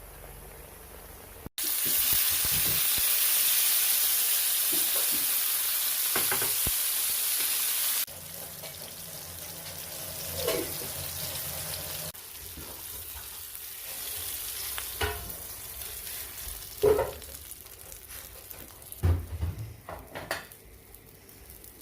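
Food frying in hot oil in a pan, sizzling loudly; the sizzle cuts off abruptly after several seconds and gives way to quieter sizzling, with scattered clicks and scrapes from stirring.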